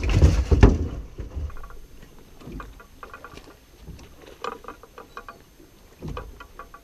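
A striped bass thumping and splashing as it is put into an aluminum boat's deck livewell, with knocks from the hatch, loudest in the first second and a half. Faint, scattered short squeaky calls follow.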